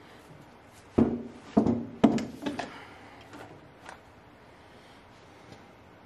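A quick run of hard knocks and clunks about a second in, then a couple of fainter ones.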